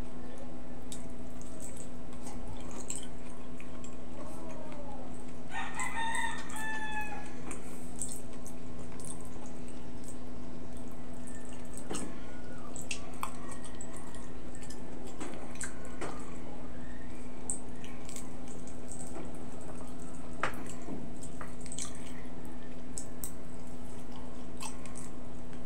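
A rooster crows once about six seconds in, a call of about a second and a half. Around it are scattered wet clicks and smacks of a person chewing and eating by hand, over a steady low hum.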